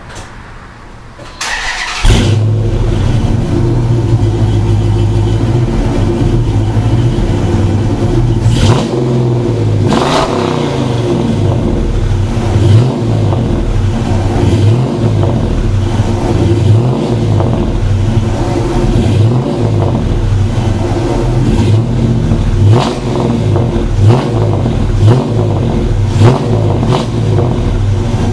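2009 Dodge Challenger R/T's 5.7-litre Hemi V8, breathing through JBA shorty headers, catless mid-pipes and Flowmaster Super 44 mufflers with the resonators deleted, starting up about two seconds in and then idling loud. Short throttle blips break in a few times, with several in quick succession near the end.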